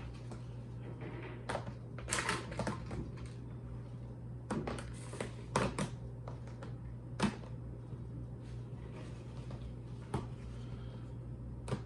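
Irregular light clicks and knocks of kitchen items being handled, over a steady low hum.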